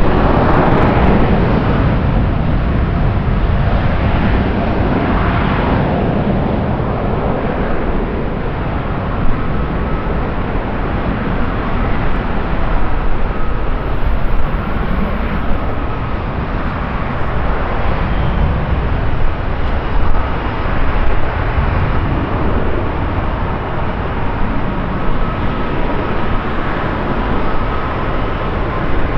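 Jet airliner engines running at an airport: steady, loud jet noise. A faint high whine comes in about halfway through.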